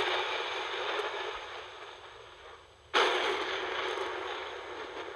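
Thunder sound effect: a thunderclap's noisy rumble fading away, then a sudden new crack about three seconds in that slowly dies down again. The sound lacks deep bass.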